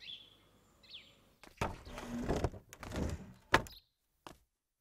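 A few bird chirps, then about two seconds of rustling and scraping that ends in one sharp knock.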